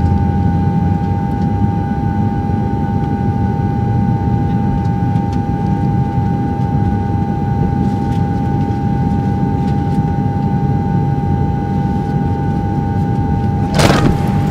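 Steady low mechanical rumble with a constant whine, and a single knock near the end.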